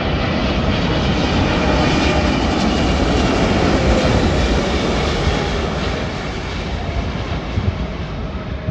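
Boeing 777-300ER's GE90-115B turbofans on landing approach: a jet roar that builds to its loudest a few seconds in and then eases off.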